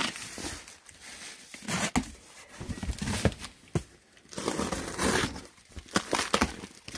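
A cardboard box and its packing being opened and handled by hand: irregular rustling, tearing and scraping, with a few sharp knocks.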